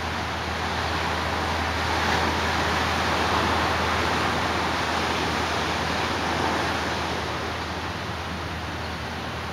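Ocean surf breaking and washing up a sandy beach: a steady rushing noise that swells for a few seconds in the middle and then eases off.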